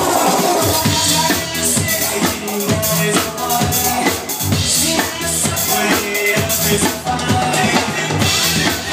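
Live drum kit played with a steady beat over electronic dance music from a DJ, with held synth notes under the drums.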